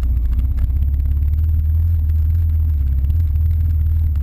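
Dirt bike engine running steadily while riding a dirt single-track trail, heard up close from a camera mounted on the bike as a loud, deep, even drone.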